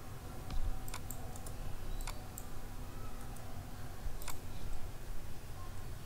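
Computer mouse and keyboard clicks: about a dozen short, sharp clicks at uneven intervals, several close together about a second in, over a low steady background hum.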